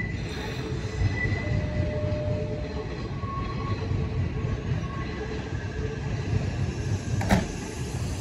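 Nishitetsu 3000 series electric train standing at the platform, its onboard equipment giving a steady low hum while its passenger doors close. A short sharp sound comes about seven seconds in.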